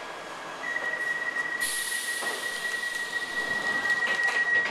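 Piccadilly line tube train at a platform: a steady high-pitched whine starts under a second in and is joined by a hiss of air about a second and a half in. A few knocks come near the end, and then the whine and hiss cut off suddenly.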